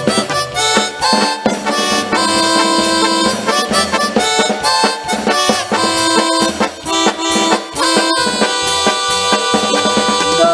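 Instrumental break of a pasito duranguense band: a sustained lead melody over a steady, busy drum beat, with no singing.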